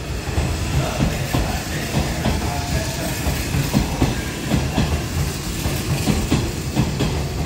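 Hanshin Railway local train pulling out of the station past the platform: a steady low rumble with wheels clicking and knocking over the rail joints as it picks up speed.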